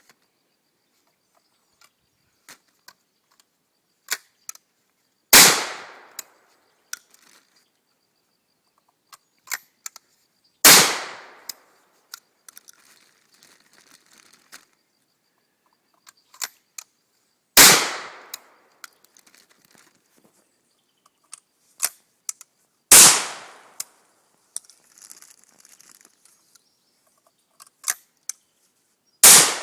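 Five shots from a 20-gauge single-shot shotgun, spaced about five to seven seconds apart, each blast trailing off over about a second. Between shots come short clicks and knocks as the gun is broken open and reloaded by hand.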